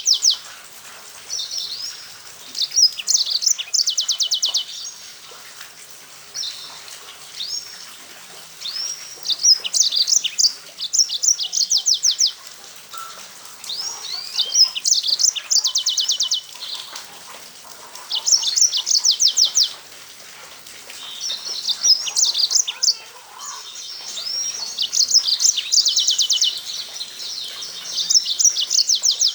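Yellow-fronted canary (Mozambique singer) singing: high, sweet phrases of gliding notes that run into fast, even trills, repeated every few seconds, with a longer, fuller bout near the end.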